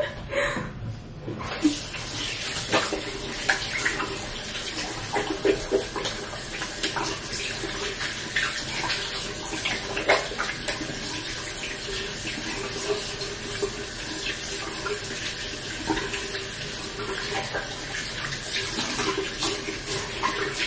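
A bathroom sink tap running steadily, starting about a second and a half in, with irregular splashing as hands scoop water to rinse a cream makeup remover off the face.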